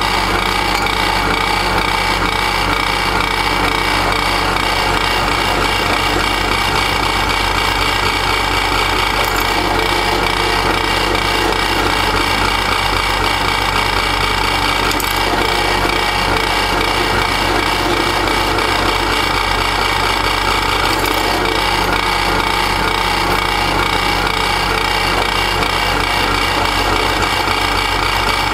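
Drill press running with a steady hum as its bit drills holes through a metal exhaust tube, the perforated inner core of a homemade glasspack muffler.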